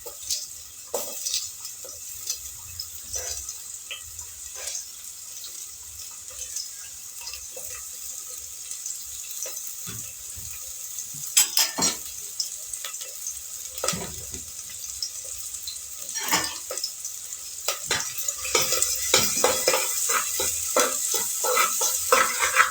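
Grated onion sizzling in ghee in a pot, with a steady hiss. A spoon stirs and scrapes against the pot in short clicks, which grow more frequent and louder over the last few seconds.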